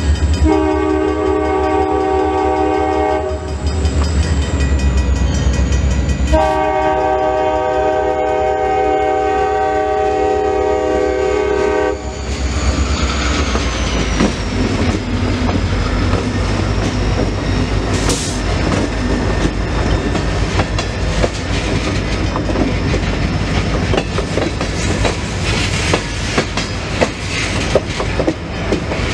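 CSX diesel freight locomotives' air horn sounding two long blasts for the grade crossing, a chord of several tones, the first about three seconds long and the second about five and a half seconds, ending about twelve seconds in. The locomotives then pass and the freight cars roll by with steady rhythmic wheel clatter and rail rattle over a low engine rumble.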